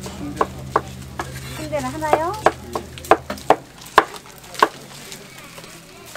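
Kitchen knife chopping through boiled pork offal onto a cutting board: about a dozen sharp knocks, roughly two to three a second, stopping a little before five seconds in.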